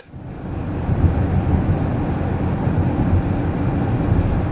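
Steady low road rumble inside the cabin of a 2017 Chrysler Pacifica minivan driving along a paved road. It fades in over the first second.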